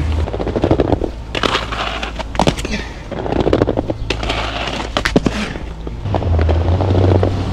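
Aggressive inline skate wheels rolling over rough pavement with a gritty rumble, broken by several sharp clacks and scrapes of the skates striking the ledge and the ground.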